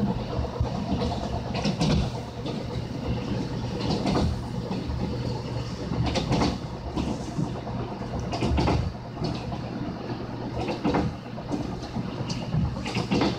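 Tze-Chiang express train running, heard from inside a carriage: a steady low rumble with a knock from the wheels about every two seconds.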